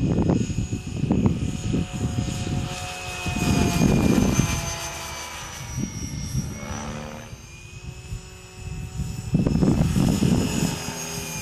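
Electric RC helicopter flying overhead: a steady high motor-and-gear whine with rotor hum, both drifting slightly up and down in pitch as it manoeuvres. Irregular low gusts of wind rumble on the microphone over it, loudest at the start and again near the end.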